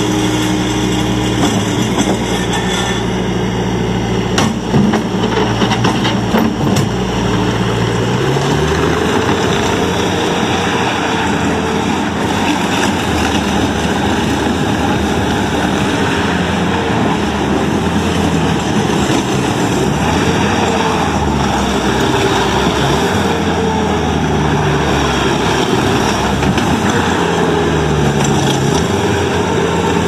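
2019 Bobcat T450 compact track loader's diesel engine running as the machine works and drives, its pitch rising and falling with the load. A few clanks sound in the first seven seconds or so.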